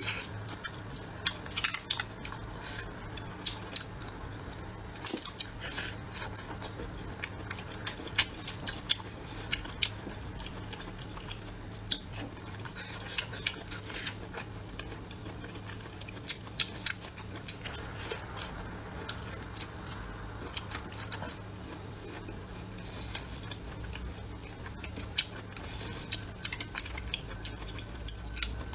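Close-miked eating: crisp bites and crunchy chewing of a small green pumpkin, a scattered run of short sharp crunches and clicks over a low steady hum.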